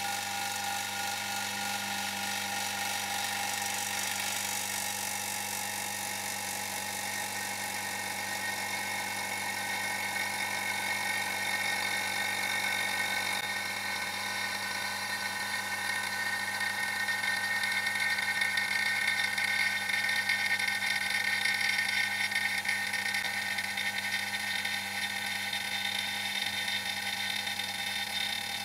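Vacuum pump running steadily with a high whine, pulling a vacuum on a resin-degassing chamber as trapped air bubbles out of the resin.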